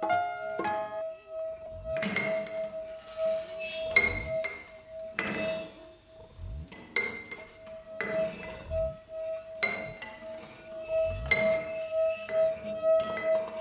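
Instrumental music: one steady held tone runs underneath while repeated clinking struck notes ring out and fade every second or two, with low falling thuds beneath them.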